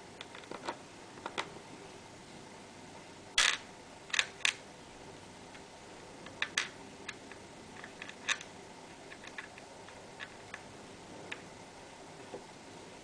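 Scattered sharp clicks and small knocks of laptop parts being handled during a RAM swap, the loudest about three and a half seconds in, then a pair shortly after and further clicks every second or two.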